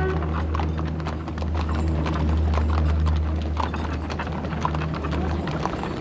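Hooves of cart-pulling horses and donkeys clip-clopping on a paved street in a quick, irregular patter of clicks, over a steady low hum.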